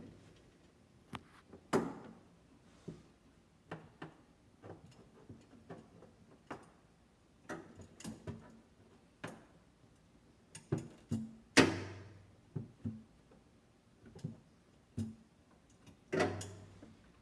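Irregular clicks and knocks of a UV light unit with a magnetic bracket being handled and set in place inside an air-conditioning cabinet, with three louder ringing metal clanks: about two seconds in, near the middle, and near the end.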